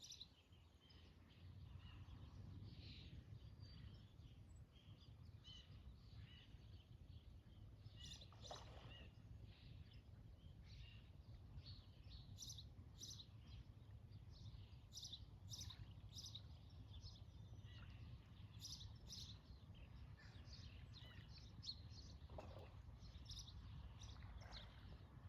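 Faint wild birds chirping and calling, with a quick series of sharp repeated calls in the middle. Twice, about 8 seconds in and again near the end, there is a short splash of a fish breaking the water surface. A steady low rumble of ambient noise lies underneath.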